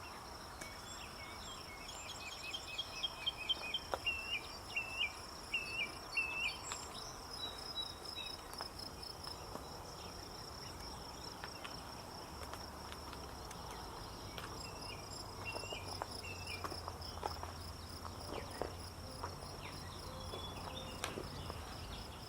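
Insects, crickets or similar, trilling in one steady high-pitched tone, with series of short chirps a few seconds in and again past the middle. A faint low hum comes in about halfway through.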